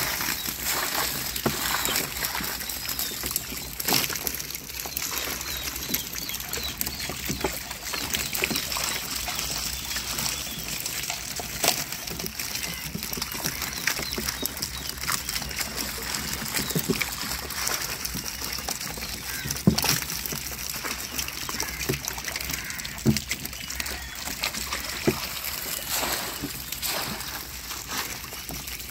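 Water splashing and sloshing as a round hand scoop net is worked through the water of a bamboo-screen fish enclosure and its catch tipped out, with many small irregular slaps and clicks.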